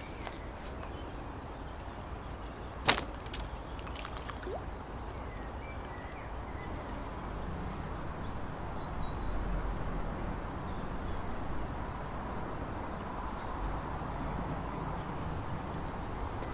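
Steady low outdoor background noise, with one sharp click about three seconds in, followed by a few fainter clicks.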